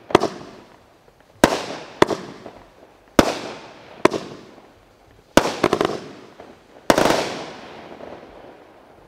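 Aerial shells from a consumer firework cake bursting overhead: sharp reports roughly once a second, each trailing off. A rapid cluster of several reports comes about five and a half seconds in, and a last heavier volley near seven seconds fades away.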